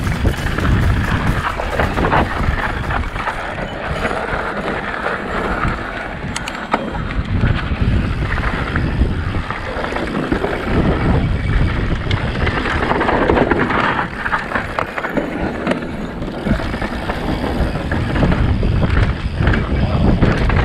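Yeti SB165 mountain bike riding fast down a rough dirt and rock trail: tyres crunching over loose dirt, with constant rattling and knocking from the bike and a low rumble of wind on the microphone.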